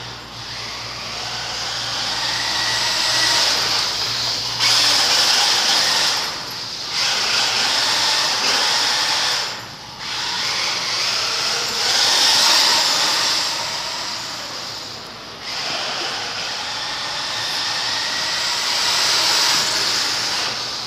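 Radio-controlled car driving on a concrete floor, its motor and tyres running in long throttle runs that swell and fade, easing off briefly about 5, 10 and 15 seconds in.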